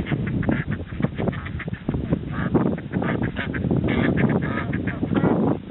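A crowd of geese and ducks honking and quacking over one another in many overlapping short calls.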